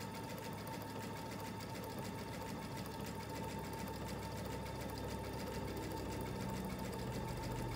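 Baby Lock Destiny computerized sewing machine stitching steadily, a fast even run of needle strokes over a constant high motor whine.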